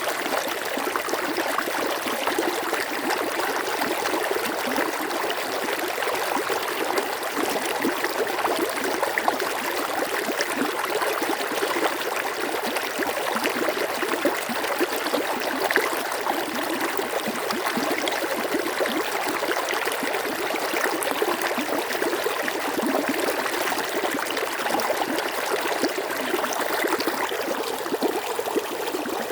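Stream water flowing and trickling steadily, with a fine, continuous babble.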